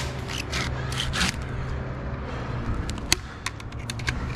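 Silky handsaw cutting white pine: a few rough sawing strokes in the first second or so, then scattered sharp clicks and small knocks, over a steady low hum.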